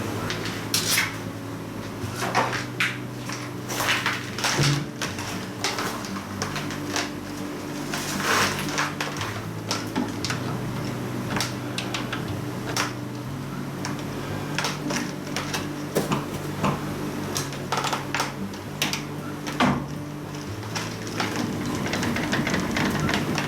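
Metal lathe running with a steady low hum while metal is worked on it, with frequent clinks, knocks and scraping strokes.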